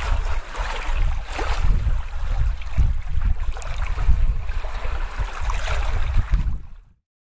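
Rushing, rumbling noise of wind and surf with irregular surges and a heavy low rumble, fading out near the end.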